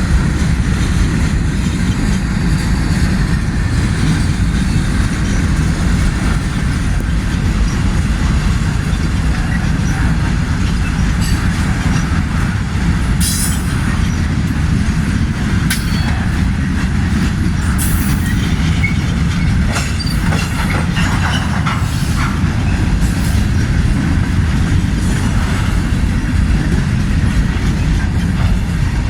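A slow-moving freight train rolling past with a steady, loud low rumble of wheels on rail. A few brief, sharp high-pitched sounds come through near the middle.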